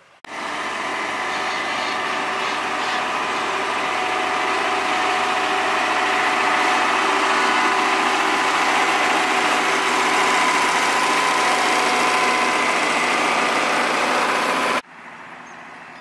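Diesel engine of a single-drum road roller running steadily, with a steady high whine over the engine note. The sound starts and cuts off abruptly.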